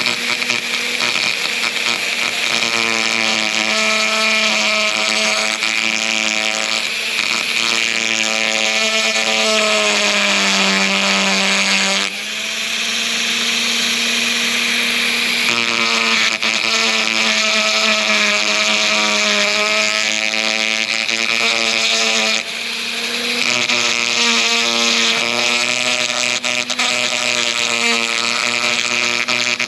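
Dremel rotary tool with an abrasive bit running at high speed, grinding rust from under the rubber seal of a car's rear window frame. Its whine wavers in pitch as the bit bites and sags around ten seconds in, with two brief drops in loudness, about twelve and twenty-two seconds in.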